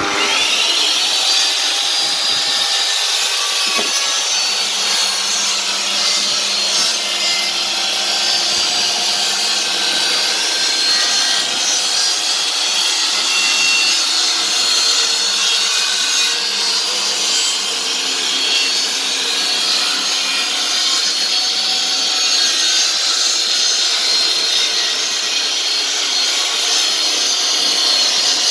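Electric power saw spinning up with a rising whine, then cutting through a wooden board at a steady pitch for a long stretch, and winding down near the end.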